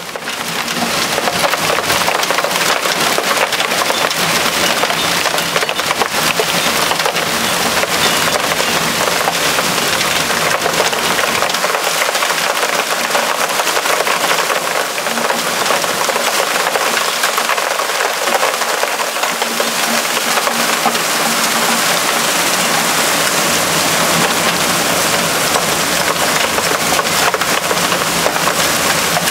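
Hailstorm: hailstones pelting down in a dense, steady clatter of countless small impacts.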